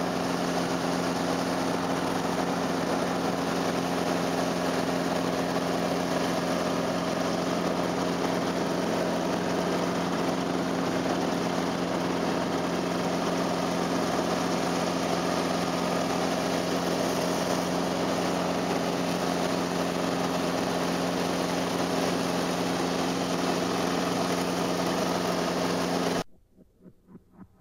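Light helicopter's engine and rotor heard inside the cabin in flight: a loud, steady drone with a constant low hum. It cuts off abruptly near the end, giving way to faint music.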